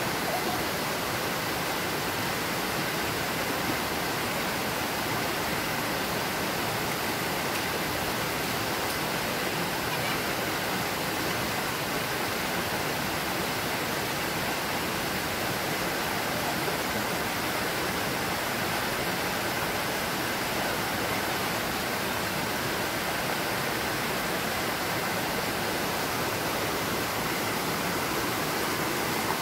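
Shallow rocky stream rushing steadily over stones and boulders, an even, unbroken water noise.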